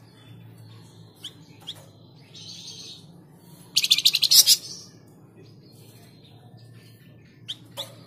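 Caged flamboyan (tledekan) songbird calling: a few thin rising chirps and a short buzzy note, then a loud fast rattling chatter about four seconds in, and two soft chirps near the end. A steady low hum runs underneath.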